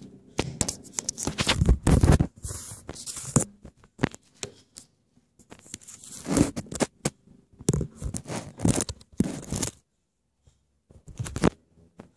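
Scraping and rubbing noises right against the microphone, as from a phone being handled and brushed close to the ground, coming in irregular clusters, then stopping, with one last short burst about a second before the end.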